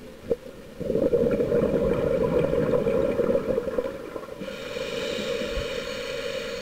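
A scuba diver's exhaled bubbles rumble and gurgle out of the regulator, heard underwater, starting about a second in. After about four seconds the bubbling drops away and a thin, steady whine runs until it cuts off suddenly.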